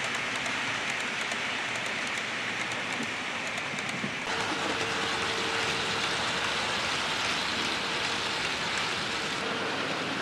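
HO-scale model train running along the layout track: a steady whirring rattle of the small electric motor and metal wheels on rail. About four seconds in it grows brighter and a faint steady motor whine joins in.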